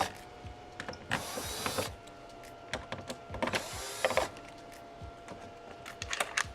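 Electric screwdriver whirring in two short runs, about a second and then three and a half seconds in, backing out the screws that hold a TV's main board, with small clicks and taps in between.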